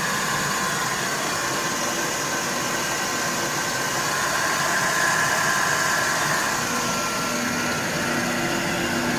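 ALUP COMBI GE 7.5 rotary screw air compressor running on load, a steady whooshing hum with a faint high whine, as it builds pressure in its air receiver.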